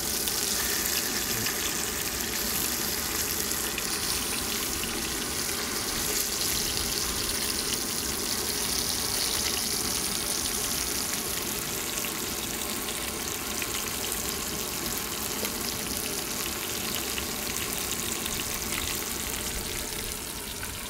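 Pink snapper fillets sizzling in a small frying pan over a canister gas stove: a steady frying hiss full of fine crackles.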